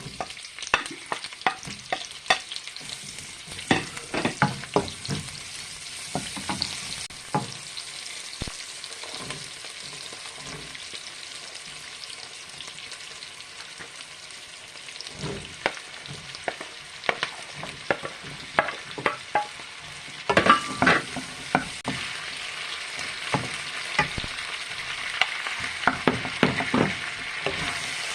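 Food sizzling in a hot frying pan while a utensil stirs it, with frequent clicks and scrapes against the pan over a steady sizzle.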